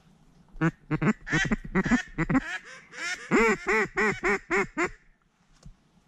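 Loud mallard-style duck quacking: a loose string of quacks, then a steady run of about six quacks, roughly three a second, each rising and falling in pitch. The calling stops about a second before the end.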